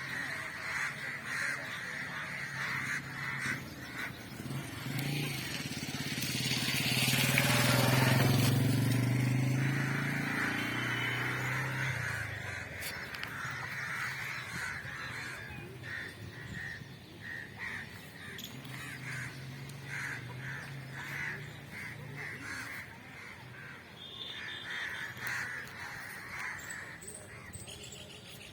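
Outdoor ambience of birds calling, with a motor vehicle passing by, loudest about eight seconds in; a fainter engine drone comes again later.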